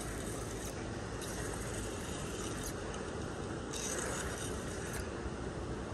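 Spinning reel cranked steadily, its gears whirring as a hooked bullhead is reeled in.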